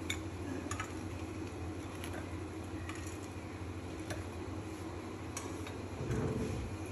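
Metal kitchen tongs clicking and tapping faintly against glass and ceramic plates as fried patties are lifted and set down, a few scattered clicks over a steady low hum.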